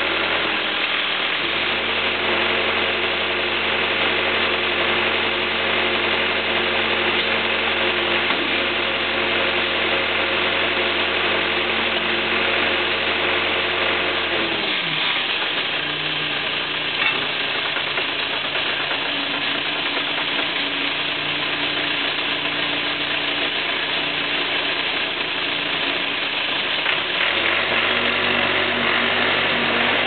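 1980 Case 580C backhoe's engine idling steadily. About halfway through its pitch drops sharply as it is throttled back, and it runs on at a lower speed.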